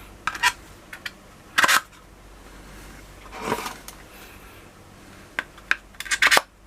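Clicks and clatter of insulated screwdrivers being fitted into a screwdriver holder rack: a few sharp clicks in the first couple of seconds, a longer handling scrape about halfway through, and a quick run of clicks near the end.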